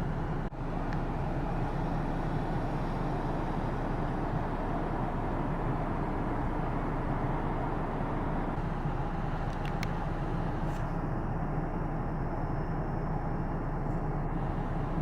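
Steady noise of a car driving through deep standing floodwater, engine and tyres pushing through the water, with a brief dropout about half a second in.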